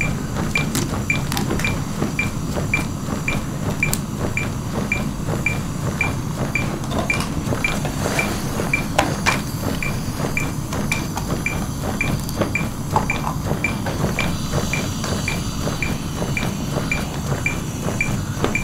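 A CPR metronome on the defibrillator-monitor beeping about twice a second, a short high beep pacing the chest compressions, over the low noise of compressions on a training manikin with a few scattered clicks.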